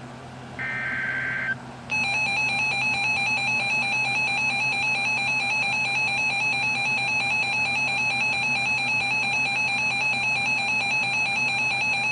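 Emergency Alert System signal: a short burst of SAME header data tones, then, about two seconds in, the steady two-tone EAS attention signal starts and holds, announcing a flash flood warning.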